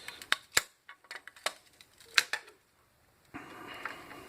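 Sharp, irregular clicks and taps as the thin sterling silver back of a hairbrush is worked at its edges to free the bristle insert, followed by a steady scraping from about three seconds in.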